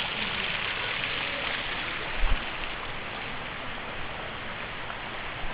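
Steady rush of falling water, with a brief low thump about two seconds in.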